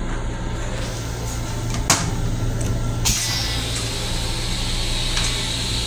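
M7 rail car toilet starting its flush cycle: a sharp click about two seconds in, then a steady hiss from about three seconds in, over the low steady hum of the rail car.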